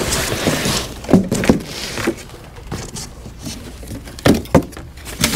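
Large cardboard shipping box being turned and its side folded down flat: cardboard scraping and rustling for the first second or so, then several dull thumps, two of them close together near the end.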